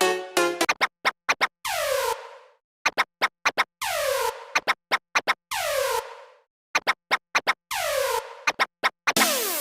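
Electronic sound effect: clusters of quick stuttering hits, each followed by a falling synth sweep, four times over. A dense electronic dance beat starts near the end.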